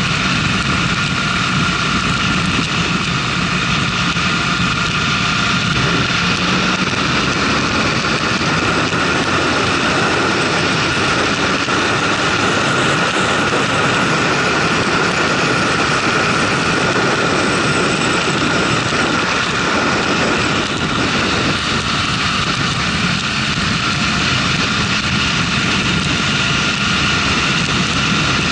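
Motorcycle riding at around 90 km/h: a steady engine drone blended with heavy wind rush on the bike-mounted camera's microphone, with no gear changes or sudden events.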